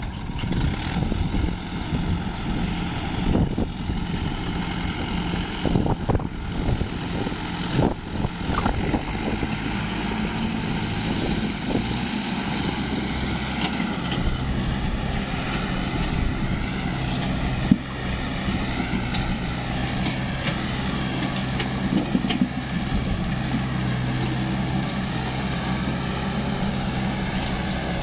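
Swaraj tractor's diesel engine working under load as it pulls a fully loaded sand trolley through mud. The engine sound is uneven with knocks at first and settles into a steadier tone about halfway through.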